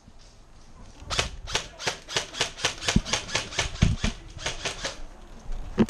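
Airsoft gunfire: a steady string of sharp cracks, about five a second, from about a second in until near the end, with a few heavier knocks among them.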